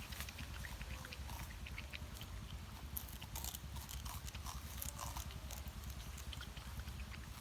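Porcupine chewing and gnawing small bamboo, a run of irregular crunching crackles and clicks, over a low steady rumble.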